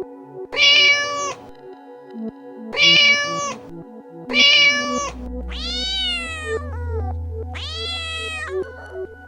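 A cat meowing five times: three short, identical meows about every second and a half, then two longer meows that rise and fall in pitch. Soft background music plays underneath, with a low drone coming in about halfway.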